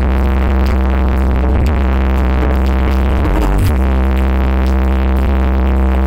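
Loud electronic dance music blasting from a stacked carnival "sound horeg" speaker system, dominated by a deep, held bass that briefly drops out about three and a half seconds in.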